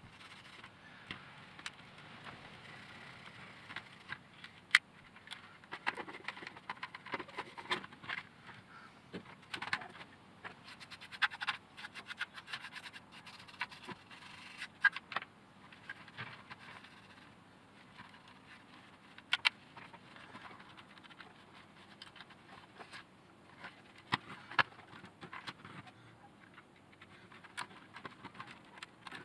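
Irregular scratching and scraping with scattered sharp clicks and knocks: parts of a robot vacuum being scrubbed and handled as they are cleaned.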